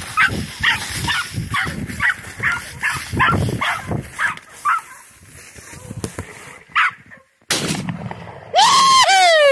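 A pack of hunting dogs baying, giving short barks two to three a second, the cry they give when they have found the deer and are on it. Near the end come a few loud, close yelping calls that rise and fall in pitch.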